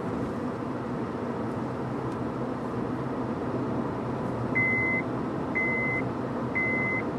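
Steady road and engine noise inside a moving car's cabin. About four and a half seconds in, three short high electronic beeps start, a second apart.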